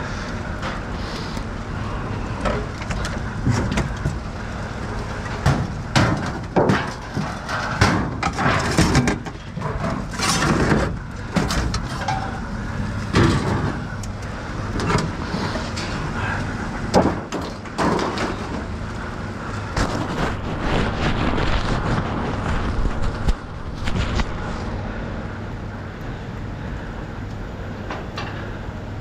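Scrap sheet-metal appliances and panels being dragged across a steel pickup bed and tossed out: repeated metal clanks, bangs and scrapes at irregular intervals, over a steady low engine rumble.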